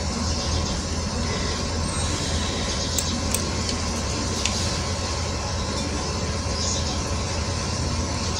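Steady background hum and hiss with a few faint, short clicks about three seconds in and again near four and a half seconds.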